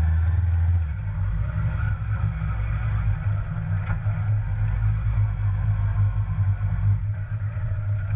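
An engine running steadily with a low, fluttering note that changes about a second in.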